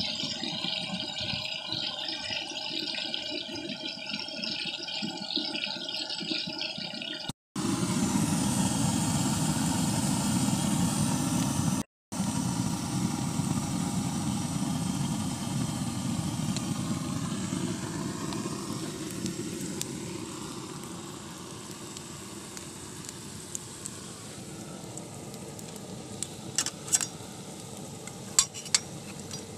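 Meat frying in oil in a wok, sizzling over a gas burner's steady roar. The sound breaks off twice in brief cuts and grows quieter in the second half. A few sharp clicks come near the end.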